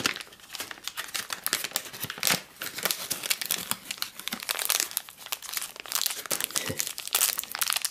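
Crinkling and tearing of MRE plastic-and-foil packaging as a ration pouch is torn open and the candy packet inside is pulled out and handled: a dense run of crackles with louder rustles now and then.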